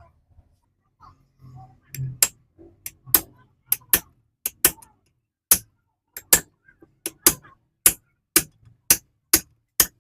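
A series of sharp metallic taps or clicks, roughly two a second and a little uneven, starting about two seconds in.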